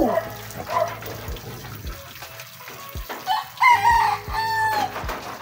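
A rooster crows once about three seconds in, a call of several notes lasting about a second and a half, the last note held and falling slightly.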